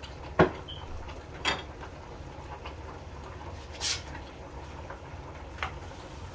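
Four sharp knocks and clacks of kitchen utensils on cookware, spread over a few seconds; the first, about half a second in, is the loudest. A low steady hum runs underneath.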